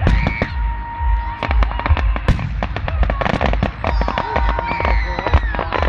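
Fireworks display going off in quick succession: many sharp crackling pops over repeated deep booms.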